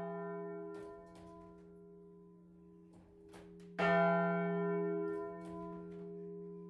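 Large bronze church bell swung and rung on its own in the tower: a stroke ringing away, then a loud stroke about four seconds in that rings on, with faint knocks between the strokes.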